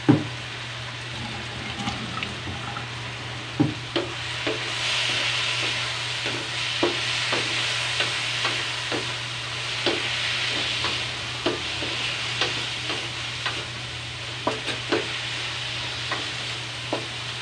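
Chicken pieces sizzling as they fry in a wok, cooked down dry before broth is added, with a wooden spatula scraping and tapping against the pan every second or so. The sizzle grows louder about five seconds in.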